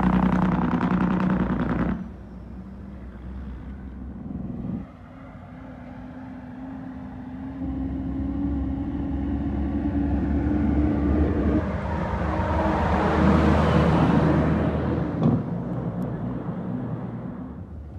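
Heavy dump trucks driving past on a road, their diesel engines running. After two abrupt changes early on, one truck grows steadily louder as it approaches, passes at its loudest about three-quarters of the way through, and then fades.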